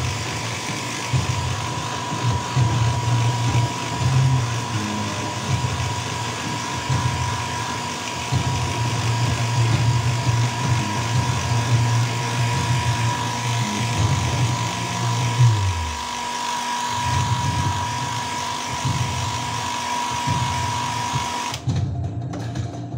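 Handheld hair dryer blowing steadily, with a steady whine over its rushing air, drying the airbrushed paint on a fishing lure; it is switched off near the end. A low uneven rumble runs underneath.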